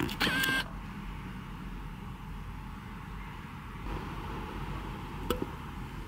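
A short electronic beep right at the start over a steady background hum, with a single sharp click about five seconds in.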